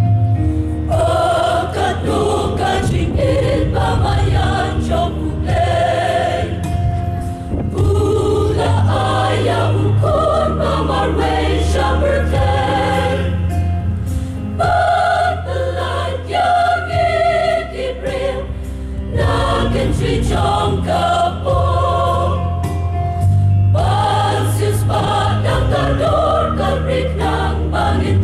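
Women's choir singing a hymn over a steady low accompaniment.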